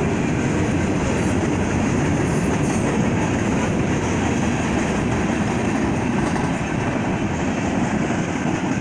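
Freight train cars (autoracks, boxcars and tank cars) rolling past at a grade crossing: a steady, unbroken noise of steel wheels on the rails.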